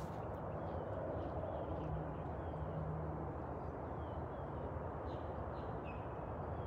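Outdoor ambience: a steady low rumble with a few faint bird chirps scattered through it.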